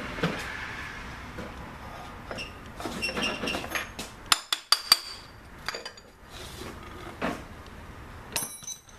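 Metal clinks and clanks of a hand tool against the steel oil filter canister of a 1948 Farmall H as the canister is worked loose. There is a quick run of sharp, ringing clanks about halfway through and another short clatter near the end.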